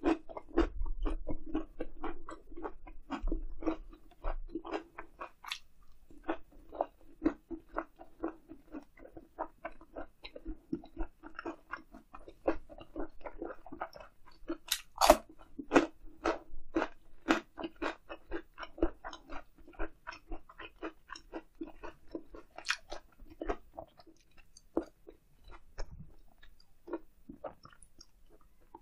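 Close-miked ASMR chewing of grilled eel in a ssam wrap: a steady run of crisp crunches and wet bites, about two to three a second, a few louder crunches around the middle.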